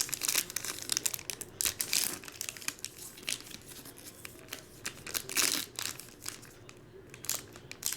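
Trading card pack wrappers being crinkled and torn open by hand: irregular crackles and rustles, loudest about two seconds in and again about five and a half seconds in.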